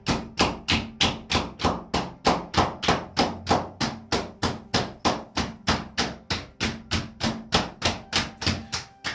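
Cupped hands slapping the legs in qigong self-tapping, a steady run of hollow pats at about four a second that stops just before the end.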